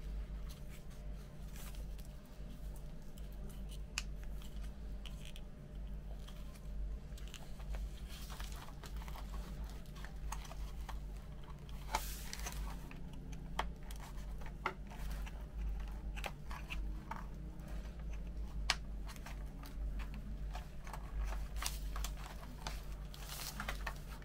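Small plastic model parts handled and pressed together by hand: scattered light clicks, taps and rustles over a steady low hum.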